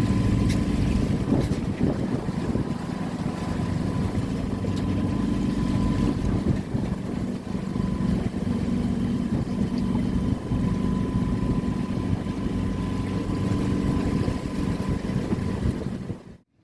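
A boat's engine running steadily under way, with a low hum and wind noise on the microphone; it cuts off suddenly near the end.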